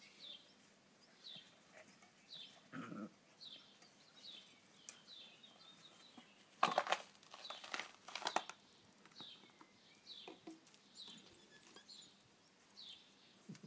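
Short high chirps, each falling in pitch, repeat about once a second. About halfway through, a louder burst of rustling and knocking is heard.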